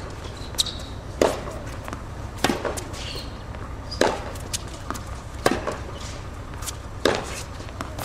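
Tennis rally on a hard court: racket strings striking the ball five times in turn, one sharp pock about every second and a half.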